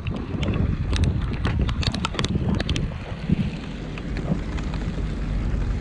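Wind buffeting the microphone over a steady low rumble, with a quick, irregular run of light clicks between about one and three seconds in.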